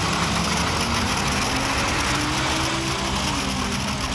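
Engine of an armoured military vehicle running steadily as it drives along a street, with a faint tone that slides in pitch about midway.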